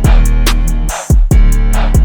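Background music with a steady drum beat, dropping out briefly about a second in.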